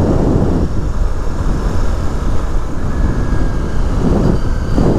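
Honda CRF motorcycle engine running steadily as the bike is ridden along a lane, mixed with wind rumble on the camera microphone.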